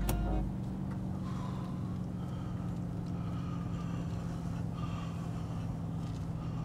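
A sharp click at the very start, then the steady low drone of a car heard from inside the cabin while driving through a road tunnel, with faint wavering high tones above it.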